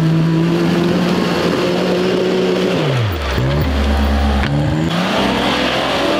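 Off-road vehicle's engine revving hard and held at high revs, then dropping sharply to low revs about three seconds in, and picking up again near the end.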